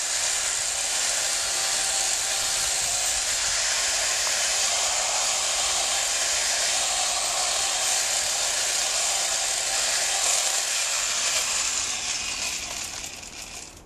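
Chainsaw running steadily at speed, dying away near the end.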